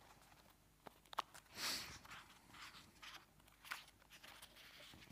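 Faint handling of paper sheets on a music stand: soft clicks and crinkles, with one longer rustle about a second and a half in.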